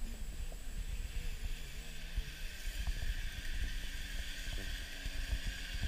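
Muffled underwater sound picked up by a camera submerged in lake water: a steady low rumble with a faint hum that wavers up and down in pitch.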